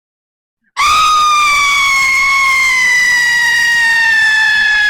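A woman's long, high-pitched scream, starting about a second in and held on one slowly falling pitch.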